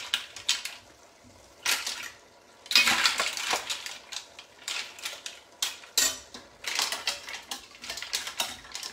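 Metal tongs and a spoon clattering and scraping against steel pans, with mussel shells clinking as mussels are moved into a pan of spaghetti. The clicks come in irregular clusters, with the loudest burst about three seconds in.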